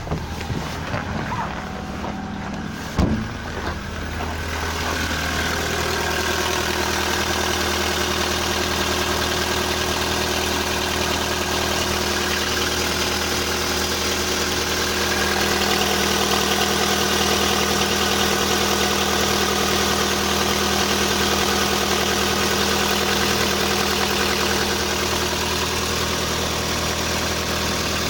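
Volkswagen Polo sedan's 1.6-litre CFNA four-cylinder petrol engine idling steadily just after a cold start at minus 30, with the ticking of the hydraulic lifters; the owner hears no piston knock. A thump about three seconds in, after which the engine sounds louder and closer.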